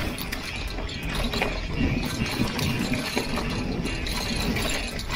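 Full-suspension mountain bike coasting down a rough dirt trail: the rear freehub ratchet clicking, with a steady irregular rattle of chain and frame and tyre noise over the ground.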